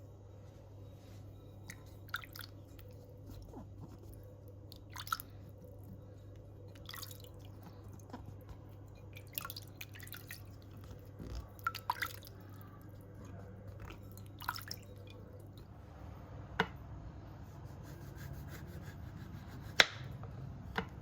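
Scattered small clicks and taps, about a dozen at irregular intervals, over a steady low hum.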